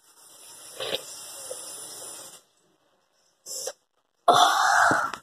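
A boy coughing from drinking sour lemon juice: a short cough about three and a half seconds in, then a longer, loud one near the end.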